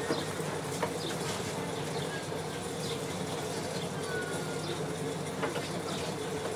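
Steady low hum with a few faint, short clicks, from work on the screwed-down plastic back cover of a CRT television.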